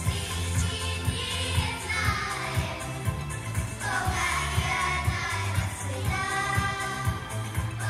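A children's vocal group singing together into microphones over accompaniment with a steady beat and heavy bass.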